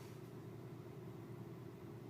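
2006 Kia Optima V6 engine running steadily, a faint even hum with a steady droning tone.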